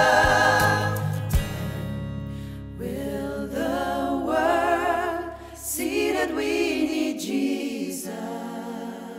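Voices singing a Christian worship song: a held chord dies away in the first couple of seconds, then new sung phrases begin about three seconds in.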